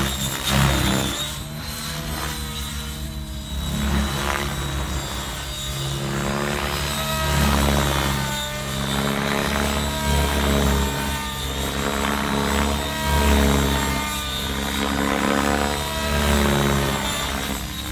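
Align T-Rex 700X electric RC helicopter flying aerobatics with its main rotor spun at about 2100 rpm: the rotor and motor sound rises and falls in pitch and loudness every second or two as it manoeuvres, over a steady high whine.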